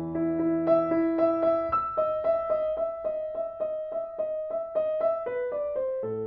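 Background piano music: a gentle melody of evenly repeated notes, about four a second, over held lower notes.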